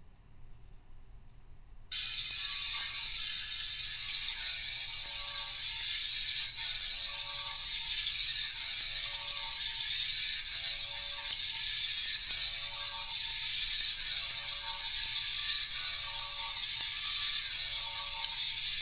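CNC milling machine's end mill cutting a pocket in a steel block on a high-speed toolpath: a loud, steady high-pitched whine with hiss that starts abruptly about two seconds in, with a faint lower pattern that repeats about once a second.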